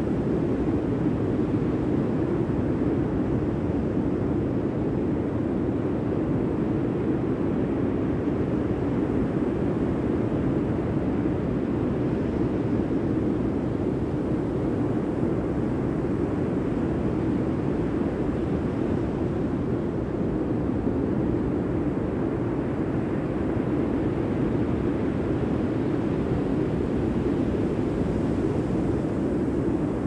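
Steady, unbroken roar of ocean surf, low in pitch and even in loudness.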